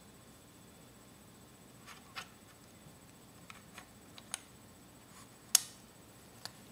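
The bolt of a PMI Piranha R6 paintball marker being slid out of the marker's body, making a few light clicks and taps of metal and plastic parts. The loudest, sharpest click comes about five and a half seconds in.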